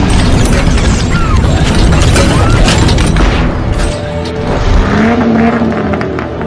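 Loud cinematic outro music with heavy hits and mechanical sound effects, thinning out about four seconds in.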